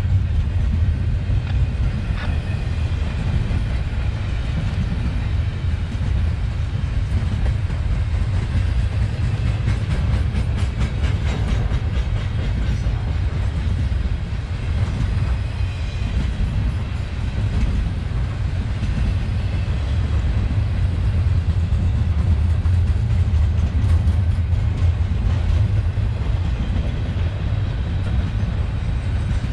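Double-stack intermodal freight train's well cars rolling past: a steady, heavy rumble of steel wheels on rail, with a stretch of quick rhythmic wheel clatter about ten seconds in.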